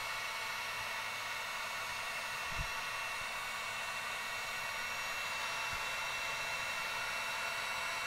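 Electric heat gun running steadily, its fan blowing with a thin, steady high whine as it shrinks heat-shrink tubing over crimped wire terminals. A single light knock about two and a half seconds in.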